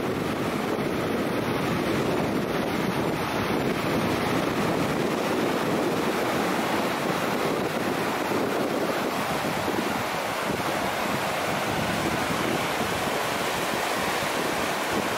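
Carmel River water rushing in a steady churn through shallow rapids over sand and rock shelves as it drains through a natural breach in the beach sandbar.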